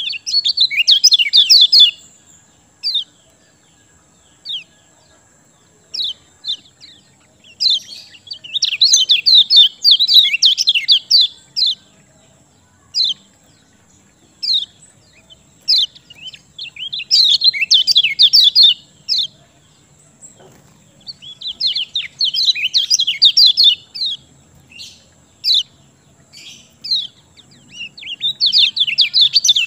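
Kecial kuning singing: five loud, fast, chattering phrases of two to four seconds each, high-pitched, with single short chirps in the gaps between them. A faint steady high tone runs underneath.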